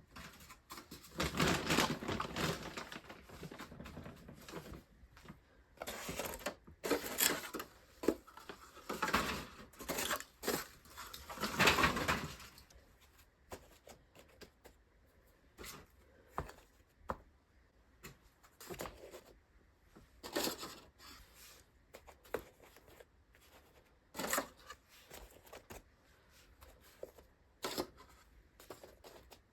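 Rustling and scraping in long stretches for the first twelve seconds or so, then scattered light clicks and knocks, as of things being handled.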